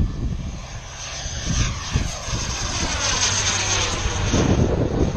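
Engine and propeller of an Elite Aerosports Havoc radio-controlled aerobatic model airplane in flight. It grows louder towards the middle as the plane passes high overhead. Low buffeting, like wind on the microphone, comes in near the end.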